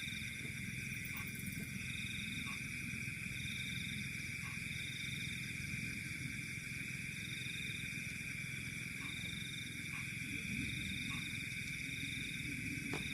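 Night chorus of insects and frogs: a steady high-pitched trill, a second, higher trill that comes and goes every second or so, and short call notes scattered through, over a low rumble.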